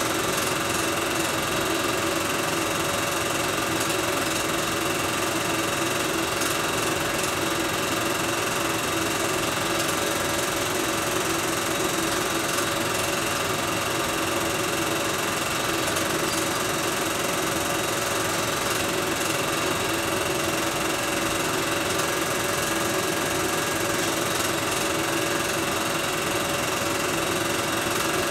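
Film projector running: a steady mechanical whirr with a constant hum that does not change.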